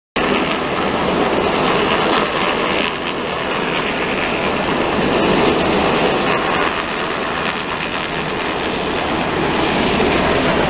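Coast Guard MH-60 Jayhawk helicopter flying low overhead, its rotor and turbine noise loud and steady, cutting in abruptly just after the start.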